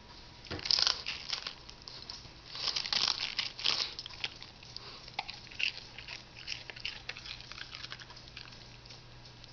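Beagle biting and crunching crisp romaine lettuce leaves, irregular crunches loudest about a second in and again from about two and a half to four seconds, then lighter chewing.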